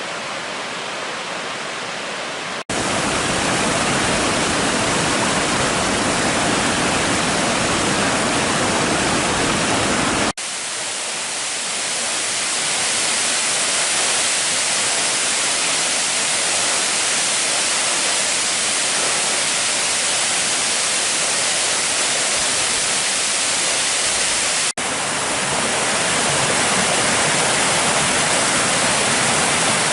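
Water rushing down a waterfall in a steady, dense roar of noise. The sound changes abruptly three times, about 3, 10 and 25 seconds in, getting louder or shifting in tone at each cut.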